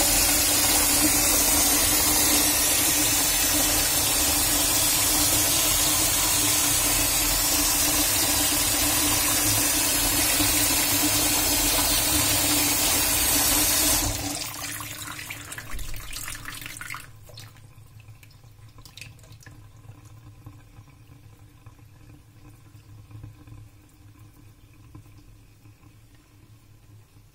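Kitchen tap running hard into a plastic bottle on a saucer in a stainless steel sink, the water overflowing and splashing into the sink. About 14 seconds in the flow is shut off and the rush dies away over a few seconds to faint trickling and dripping as the sink drains.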